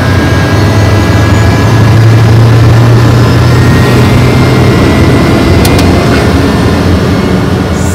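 Daher TBM 850's single turboprop engine (Pratt & Whitney PT6A) running on the ground, heard from inside the cockpit: a loud, steady low hum with a thin turbine whine above it.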